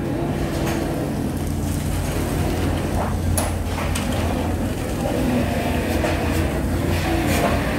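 Metalworking workshop noise: a steady low machine hum with irregular short metallic knocks and clanks over it.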